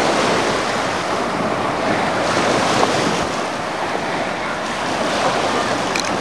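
Small waves washing and breaking on a pebbly shore, a steady rushing wash, with wind buffeting the microphone.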